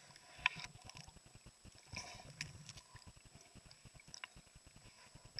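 Faint underwater sound as a camera moves among water-lily stems: scattered sharp clicks over irregular low knocking and rumble from the housing being handled in the water.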